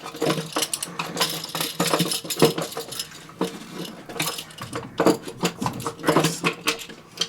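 Wires and a GFCI receptacle being pushed back into an electrical wall box: irregular clicks, knocks, scrapes and small metallic rattles.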